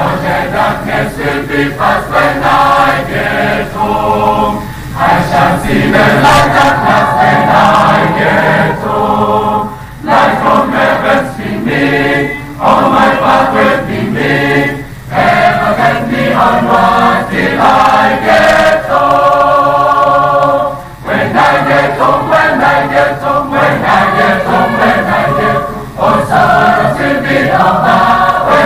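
Large choir of male and female voices singing together in long phrases, with short breaths between phrases about every five seconds.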